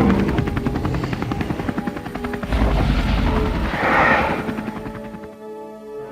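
A rapid, steady mechanical chopping pulse, like helicopter rotor blades, over film-score music. A deep rumble swells in about two and a half seconds in, and a louder rushing swell follows about a second later.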